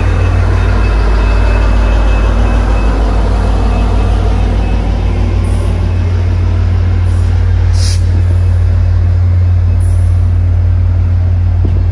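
Passenger train passing at speed: the trailing VIA Rail P42DC diesel locomotive goes by and its engine tones fade within the first few seconds, followed by the steady rumble of passenger coaches' wheels rolling on the rails. A brief sharp high-pitched burst comes about eight seconds in.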